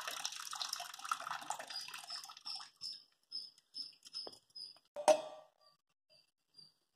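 Soaking water poured off soaked sorghum from a steel pot into a sink, a stream that thins to a trickle and then a few drips. About five seconds in comes a single sharp clink of steel dishware.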